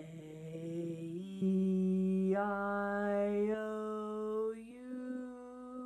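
A woman singing a vocal warm-up run on one breath, holding a single sung tone that steps up in pitch several times and grows louder about a second and a half in.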